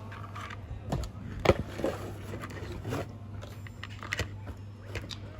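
A few sharp clicks and knocks, irregularly spaced, over a steady low hum.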